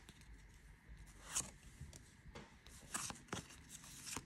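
Faint scrapes and flicks of a stack of Pokémon trading cards being handled and slid against one another, a handful of short brushing sounds spread through the moment.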